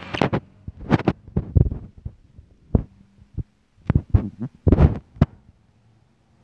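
Irregular thumps and rubbing of a handheld phone being handled, the knocks landing on its microphone at uneven intervals and stopping about five seconds in.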